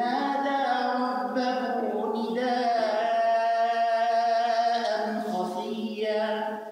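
A man's voice chanting Quranic recitation in long, drawn-out held notes.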